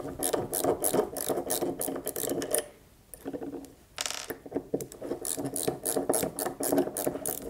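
Hex driver backing out the gas key screws on an AR-15 bolt carrier, a rapid run of small metal clicks. The clicking pauses around three seconds in, with a single knock about four seconds in, then starts again.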